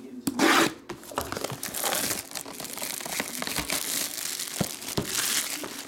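Plastic wrapping crinkling and crackling as a trading-card box is unwrapped and opened, with a louder burst about half a second in.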